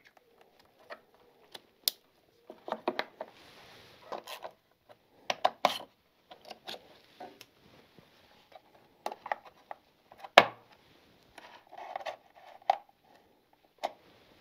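Hands fitting motorcycle parts: irregular clicks, taps and knocks of metal and plastic as a regulator rectifier is plugged in and bolted up and a chrome side cover is fitted with a screwdriver. There are short scraping stretches between them, and the sharpest knock comes about ten seconds in.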